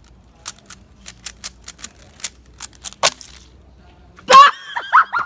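Quick, irregular clicks of a 3x3 speedcube's layers being turned in a hurried timed solve, then a loud, high-pitched yell a little over four seconds in.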